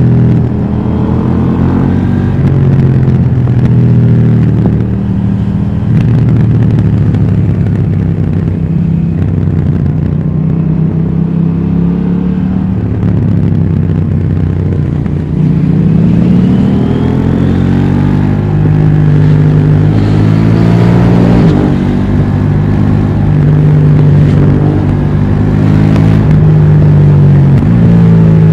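KTM 790 Duke's parallel-twin engine through its stock exhaust, accelerating and easing off on the road. The engine pitch climbs and falls several times, with sharp drops at gear changes.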